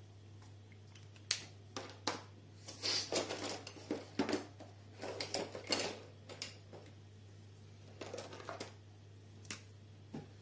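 Plastic marker pens being handled and set down on a desk: a string of light clicks and small clattering knocks, in uneven clusters.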